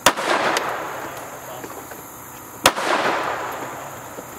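Beretta Pico .380 ACP pocket pistol firing two shots about two and a half seconds apart, each shot followed by a ringing echo that fades over about a second. The pistol is being test-fired with a newly replaced firing pin and firing pin spring.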